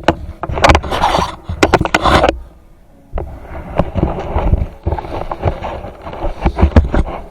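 Close handling noise as riding gear is handled: a quick run of knocks, clicks, scrapes and rustles, pausing briefly about two and a half seconds in, then starting again.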